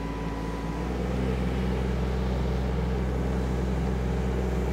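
Yanmar diesel engine of a KYMRON ZX22D mini excavator running steadily under hydraulic work. About a second in, its note shifts and grows a little louder.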